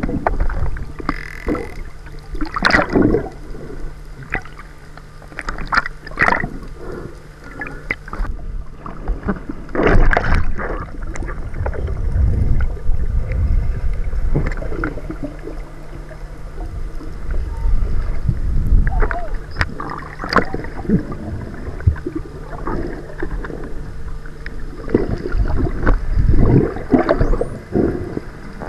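Underwater water noise picked up by a camera below the surface: rushing and bubbling that comes in irregular surges over a low rumble, with a faint steady low hum underneath for much of the time.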